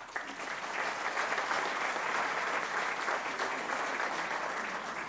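Theatre audience applauding, a steady, dense clapping.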